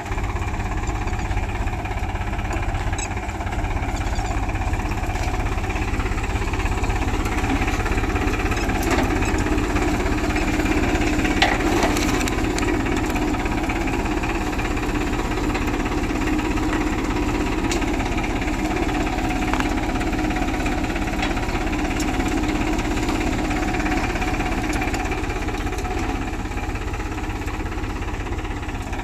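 Farm tractor's diesel engine running steadily under load as it pulls a multi-row seed drill through a field.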